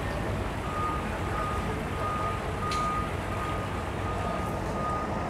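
Electronic beeper sounding a high, evenly repeated beep, about two beeps a second, over a steady low rumble of engine and outdoor noise.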